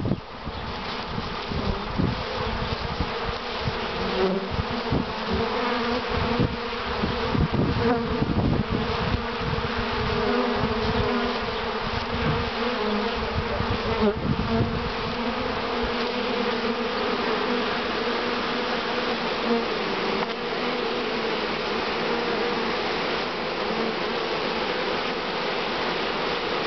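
A honeybee swarm buzzing in a steady drone as the cluster is carried to a hive and hived. Low bumps and rumbles of handling come through in the first half.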